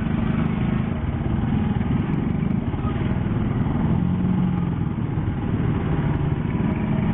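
Motorcycle engine running as the bike moves along in traffic, its note shifting a little up and down, over a steady rush of wind and road noise.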